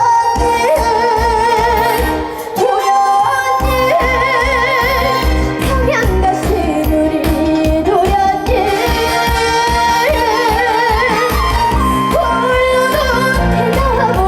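A young girl singing Korean trot with a wide, regular vibrato over a recorded backing track with a steady beat.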